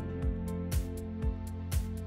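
Background music with a steady beat of about two strokes a second under sustained held notes.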